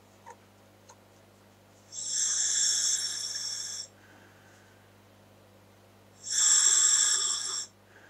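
Breathing through a scuba regulator fitted to a Dräger full-face mask: two long hisses of air through the regulator, each under two seconds, about four seconds apart.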